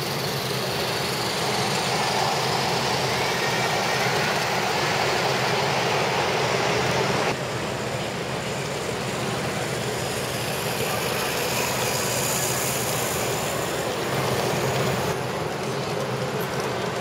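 G-scale model trains running on a garden-railway track: a steady rolling rumble and hiss mixed with a hall's background noise. The sound shifts abruptly about seven seconds in and again near the end.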